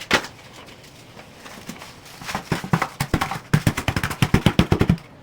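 A run of sharp knocks on a hard surface, a few scattered at first, then a quick regular series of about six a second that stops abruptly near the end.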